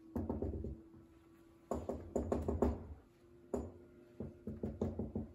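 Dry-erase marker on a whiteboard: clusters of short taps and strokes as dashed lines and letters are drawn.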